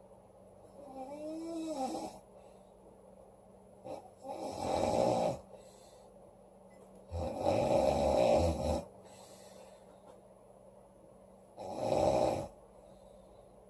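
A woman snoring loudly in her sleep: four snores about three to four seconds apart, the first fainter, the third the longest and loudest.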